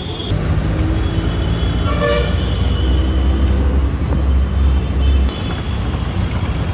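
Road traffic with a steady low engine rumble, and a vehicle horn sounding briefly about two seconds in.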